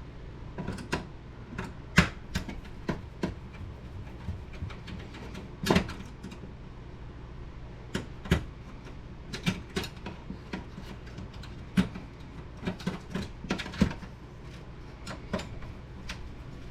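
Irregular clicks and knocks of plastic printer parts being pried apart and handled during the dismantling of an HP Deskjet 2050 inkjet printer, over a steady low hum.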